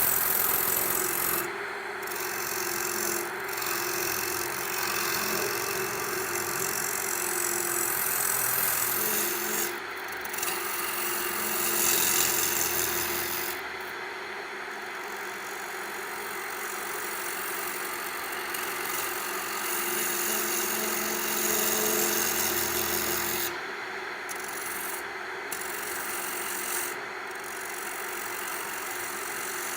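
Wood lathe running with a steady hum while a turning tool cuts the outside of a maple bowl blank held on a screw center. The rough shearing hiss of the cut breaks off briefly several times, about a second and a half in, near 10 s, around 14 s and a few times near the end, as the tool comes off the wood.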